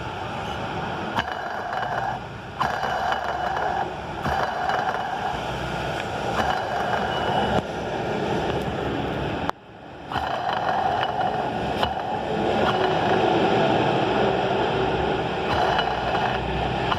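2018 Honda CG 160 Start engine turned over by hand in repeated strokes, its worn camshaft bearing making a rough, rolling scrape with a few sharp clicks: the bearing has excessive play. Street traffic runs underneath.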